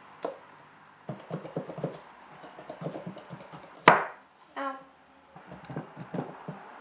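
Pumpkin being carved by hand, the tool cutting and working through the rind in a run of short scraping, clicking strokes. About four seconds in there is one sharp knock, the loudest sound, followed by a short cry of "ow".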